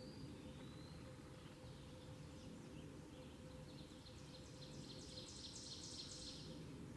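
Faint outdoor ambience with a steady low hum and a distant songbird: a few high chirps, then a quick run of high repeated notes about two-thirds of the way through.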